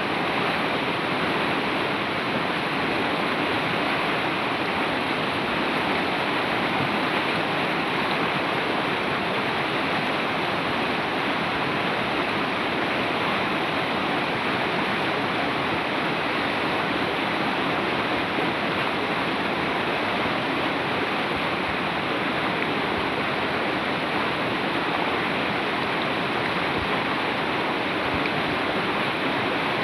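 Fast-flowing river water rushing steadily, an even, unbroken noise.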